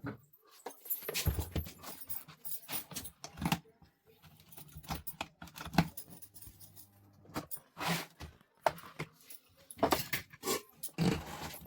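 Irregular clicks, knocks and rattles of parts being handled, over a faint steady low hum typical of a jammed table fan motor that is powered but not turning.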